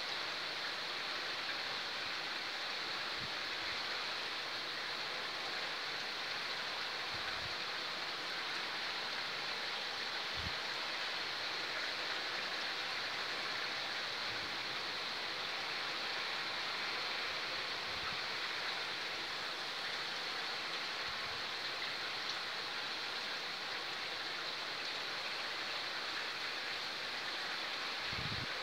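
Heavy rain pouring down steadily, an even unbroken hiss, with a few soft low thumps now and then.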